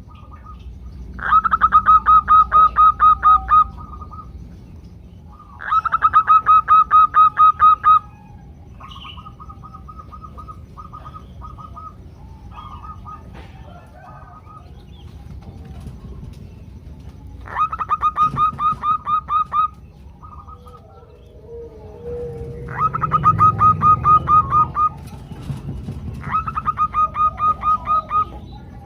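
Female zebra doves calling in rapid runs of short, evenly spaced notes, about six or seven a second. There are five loud runs of about two seconds each, with softer, shorter runs in between.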